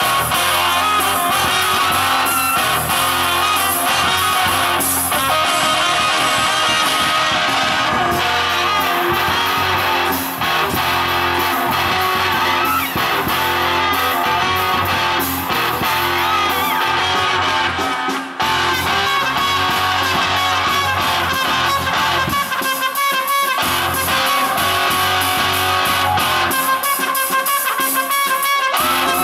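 Live band music: electric guitar and trumpet playing a rock song over a bass line. The low end drops out briefly twice near the end.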